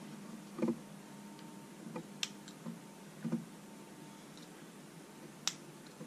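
Folding knife's blade clicking against the metal insert of a Zippo lighter, a handful of sharp, separate ticks spaced a second or two apart, as the blade is worked at the flint-spring screw on the insert's bottom without getting it to turn.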